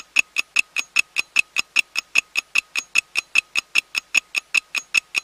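Countdown-timer sound effect: a rapid, even ticking, about six or seven sharp clicks a second, each with a short bright ring.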